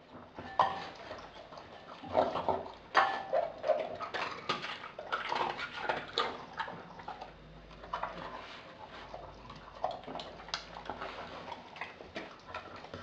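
Pitbull–German shepherd–chow chow mix dog eating raw food from a glass bowl: irregular wet chewing, licking and slurping, with sharp clicks now and then.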